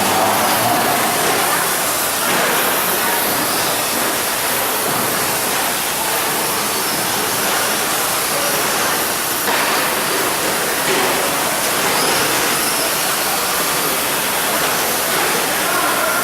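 Electric radio-controlled 2WD short course trucks racing on a dirt track: a steady, hiss-like wash of motor and gear whine and tyre noise.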